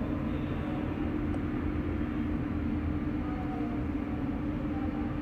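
Steady background hum and hiss with a constant low tone, unchanging throughout, with no distinct events.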